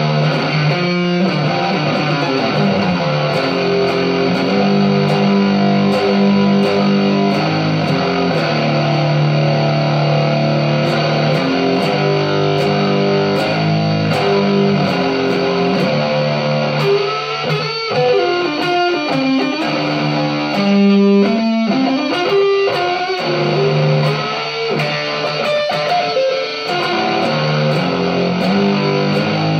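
Electric guitar playing rock, mostly long held notes, with several notes gliding up and down in pitch about two-thirds of the way through.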